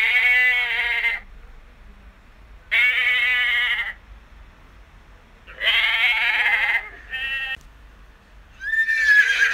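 Domestic goat bleating four times, each call about a second long with a wavering quaver, the fourth one short. Near the end a horse starts to whinny.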